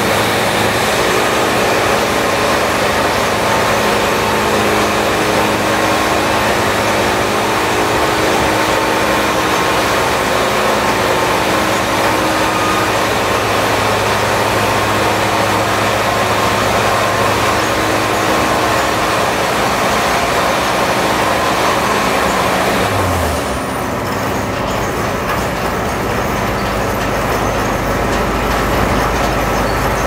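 Sawmill machinery running steadily, a loud mechanical drone with a steady hum. A little over two-thirds of the way through the sound changes: the higher hum drops away and a deep low rumble comes in.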